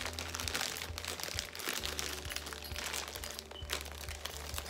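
Plastic packaging crinkling and crackling irregularly as it is handled.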